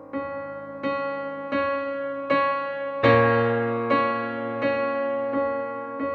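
Background music: a slow electric-piano tune, one note or chord struck about every three-quarters of a second, with a deeper, louder chord coming in about three seconds in.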